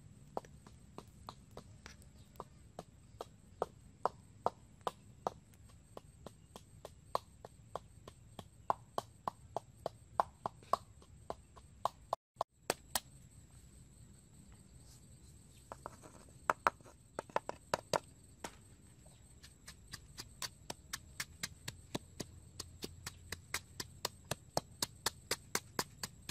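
Wooden pestle pounding chilies in a coconut-shell mortar: steady knocks, about two to three a second, with a brief break about twelve seconds in.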